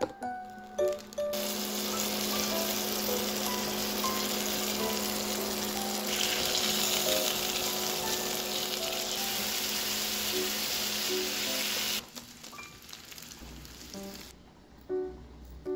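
Raw bacon strips sizzling as they fry in hot oil in a nonstick pan beside an egg: a loud, steady hiss that starts about a second in and cuts off suddenly about three-quarters of the way through. Soft background music with light plucked notes plays throughout and is left alone after the cut.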